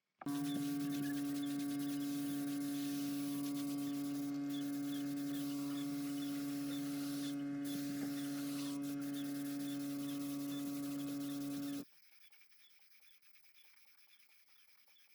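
A steady electric hum with a strong single tone and overtones, switched on abruptly and cut off suddenly after about eleven and a half seconds.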